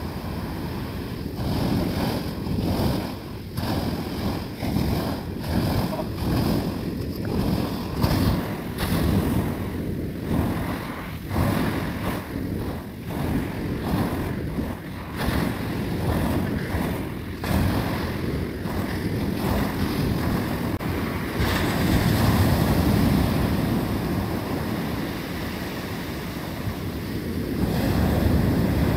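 Sea waves breaking and washing up a shingle beach, with wind buffeting the microphone. The surf swells louder about three-quarters of the way through.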